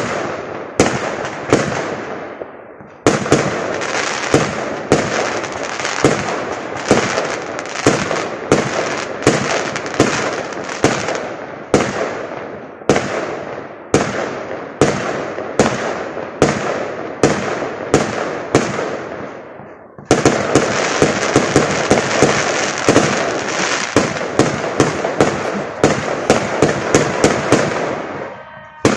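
Aerial fireworks going off in a steady string of sharp bangs, about one a second, each fading out over about a second. About two-thirds of the way in the firing turns faster and denser, several bangs a second, before dying down near the end.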